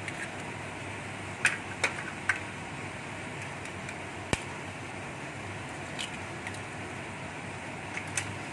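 Steady hiss of a wok cooking over a medium flame, with a few sharp taps in it: three in quick succession about a second and a half in, and single ones later.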